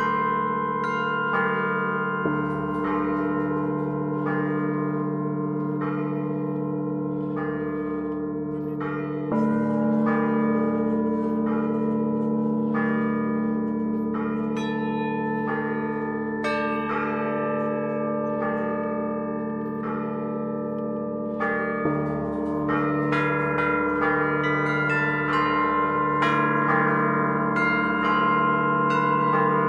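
Russian Orthodox church bells rung by hand: small bells struck in a quick, busy pattern over the sustained ringing of the larger bells. A deeper bell joins with a fresh stroke about two seconds in, again around nine seconds and again around twenty-two seconds.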